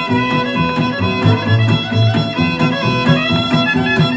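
Country record playing from a 45 rpm Decca single: an instrumental break between verses, with a fiddle taking the lead over a steady rhythm backing.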